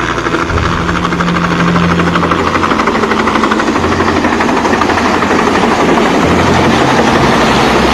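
Small helicopter flying low and close on its approach to land, its rotor beating rapidly and getting louder as it nears.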